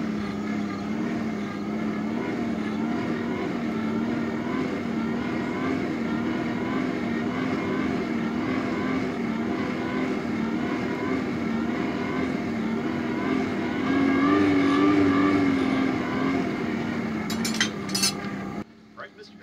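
Steady mechanical drone from a motor or blower, its pitch wavering up and down in a regular rhythm and rising a little about two-thirds of the way through, then cutting off abruptly after a few clicks near the end.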